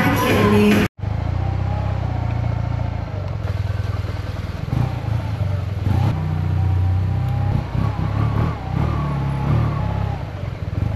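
Music with singing, cut off abruptly about a second in, then a motorbike engine running steadily while riding.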